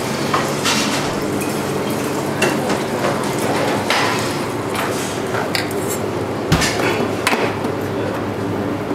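Long metal kitchen tweezers clinking and tapping against a small stainless-steel saucepan and a china plate, scattered knocks every second or so, the sharpest a little after six seconds in, over a steady low kitchen hum.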